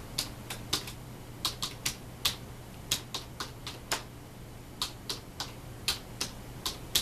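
Computer keyboard being typed on: sharp key clicks in short, uneven runs.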